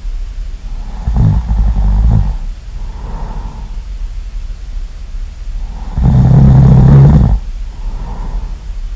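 Loud snoring in a slow rhythm: two long, low snores about five seconds apart, each followed by a softer, breathy sound.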